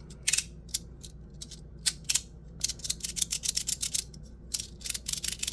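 Parker's 3D Prints Tectonix magnetic slider fidget toy, its 3D-printed plates being slid back and forth and clicking into place. There are a few scattered sharp clicks at first, then quick runs of clicks from about halfway through.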